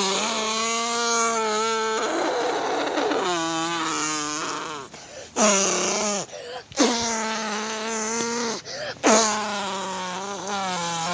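A child's voice making a run of long, drawn-out "brrr" lip trills, about five in a row with short breaks for breath, the sound of someone shivering with cold.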